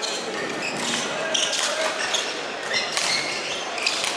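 Badminton rally on an indoor wooden court: racquets striking the shuttlecock with sharp hits, and shoes squeaking repeatedly as the players move.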